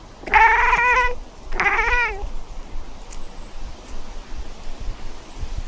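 Domestic cat meowing twice, loud and close: a steady meow of about a second, then a shorter one that wavers in pitch.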